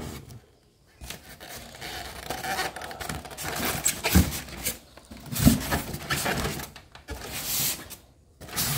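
Handling noise of an embroidery machine being unpacked: rustling and rubbing of cloth wrapping, paper and cables, with a couple of dull knocks around the middle.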